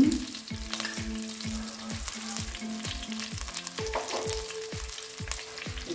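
Onions, green chillies, curry leaves and pandan leaves sizzling in hot oil in a clay pot, with background music with a steady beat.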